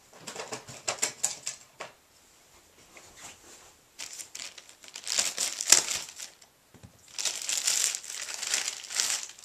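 Clear plastic bag crinkling as hands handle it and pull it off an external hard drive. It comes in three bouts of a second or two each, the middle one the loudest.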